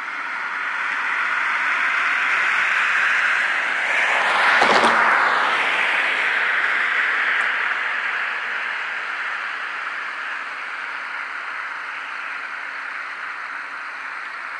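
A vehicle passes on the road: its tyre noise swells to a peak about five seconds in and then slowly fades. A steady chorus of crickets runs underneath.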